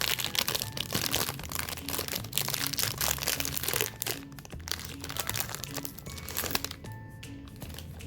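Dense crunchy crackling and crinkling from cookies and snack cakes, over background music with a steady low bass line. About seven seconds in the crunching stops and the music carries on alone.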